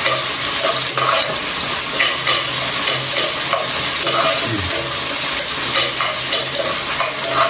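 Onion and ginger frying in hot oil in a pan: a steady sizzle, with the scraping of a ladle stirring them.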